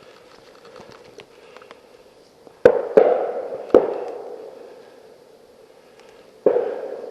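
Four sharp bangs: three in quick succession about halfway through and one more near the end, each trailing off over about a second.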